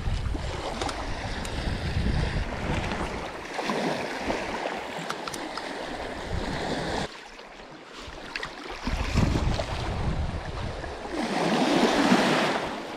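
Small sea waves washing and splashing in the shallows around a wading angler, rising and falling; near the end a wave breaks and foams close by, the loudest rush of water.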